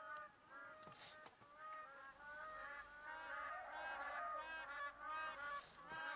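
A flock of birds calling: many short calls that rise and fall in pitch, several a second, overlapping one another throughout.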